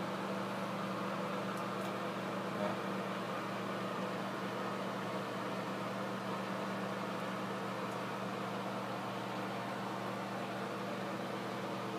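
Ventilation fan running steadily with an even hum and a rush of air, being tested through a newly connected vent duct.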